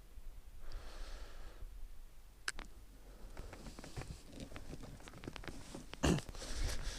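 Irregular light clicks and taps of close handling, with a louder rush about six seconds in.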